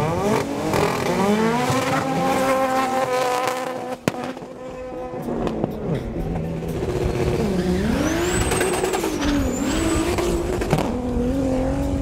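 BMW E30 drag car launching hard from the line, its engine revving up in rising sweeps through quick gear changes. A sharp click about four seconds in, then more revving rising and falling, with a high whistle that glides up and holds for a couple of seconds near the end.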